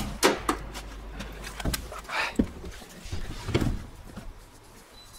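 A few scattered knocks and clicks with a brief rustle, over a low hum that stops early on.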